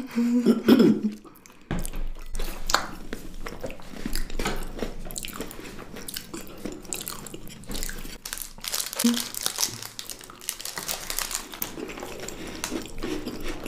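Close-miked chewing and crunching of chocolate-covered snacks, including thin chocolate-covered biscuits, made up of many small crackling bites and mouth clicks. The crackling is densest in the last third. A short vocal sound comes at the very start.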